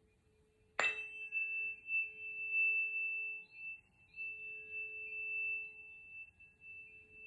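A 432 Hz tuning fork in the note A is struck about a second in and rings on in a steady pure tone with a bright high overtone above it. Its loudness swells and dips as it sounds.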